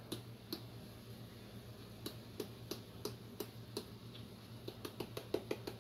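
White pepper being added from its container to the pot: a series of light clicks, a few spaced ones at first, then a faster run near the end.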